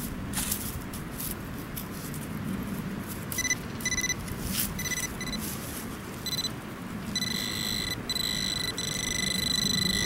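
Metal-detecting pinpointer buzzing at one fixed pitch: a few short beeps from about three seconds in, then a steady buzz from about seven seconds in, the sign that it is on a metal target in the dug soil. Loose dirt crumbles and rustles in a gloved hand throughout.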